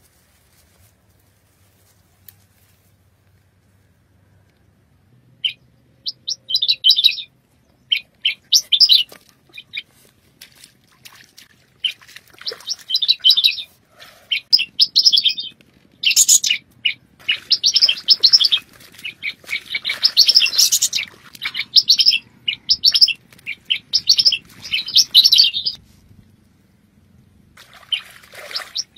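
Small birds chirping in quick, high trills that come in bursts of about a second each with short gaps between. The chirping starts a few seconds in and keeps going.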